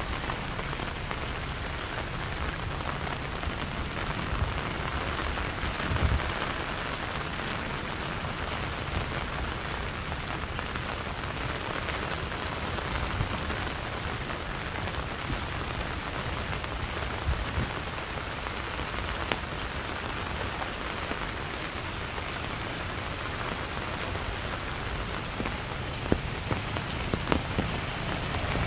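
Steady rain falling, with scattered sharper taps of drops.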